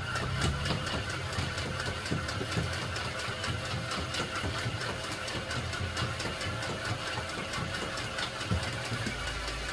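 X-Shot Insanity Motorized Rage Fire foam-dart minigun firing full auto from its dart chain: a steady motor whine with rapid, regular clicks of darts being fired. It cuts off about nine seconds in.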